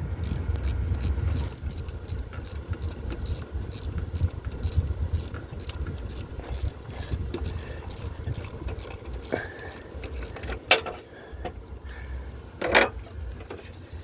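Hand tools and bolts clicking and clinking against metal while a motor mount bracket is unbolted from a car engine, with two louder metallic knocks near the end.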